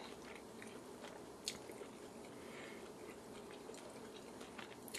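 A person chewing a mouthful of grilled barbecue chicken, faint and close, with a few short sharp clicks, one about one and a half seconds in and one near the end.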